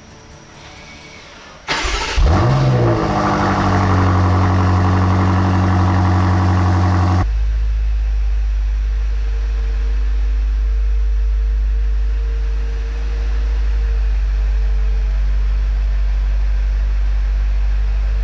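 BMW M8 Competition's twin-turbo V8 starting: it catches with a quick rising rev flare a couple of seconds in, then holds a steady fast idle. About seven seconds in it drops abruptly to a lower, deeper idle that runs on steadily.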